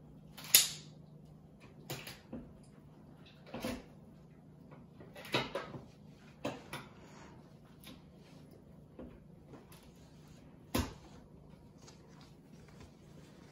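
Poultry shears cutting through a duck carcass: a handful of sharp, irregular crunches and snaps as the blades close on bone, the loudest about half a second in and another near eleven seconds.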